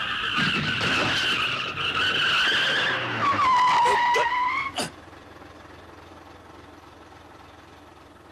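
Truck tyres screeching in a long skid under hard braking, a cartoon sound effect, with the pitch sliding down near the end; it stops about five seconds in with a sharp crack. Only faint hiss follows.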